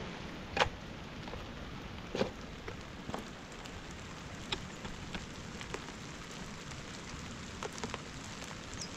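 Steady rain falling, with a few scattered sharp knocks from a hoe chopping into wet soil as a trench is dug; the strongest knocks come about half a second and two seconds in.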